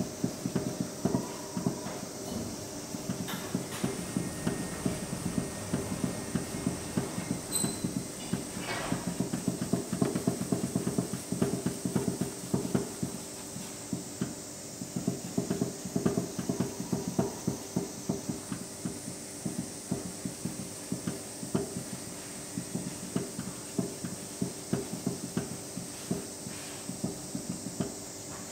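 Hands raking and rubbing crumbly, moistened buckwheat flour around a large lacquered kneading bowl: a dense, irregular patter of soft taps and rustles. This is the water-mixing (mizumawashi) stage of hand-made soba, spreading the first water through the flour.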